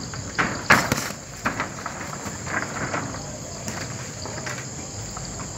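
Steady chirring of night insects, crickets, broken by a few sharp smacks, the loudest about a second in.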